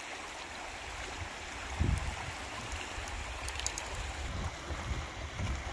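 Small waves washing and trickling over the rocks at the water's edge, with wind buffeting the microphone and a single low thump about two seconds in.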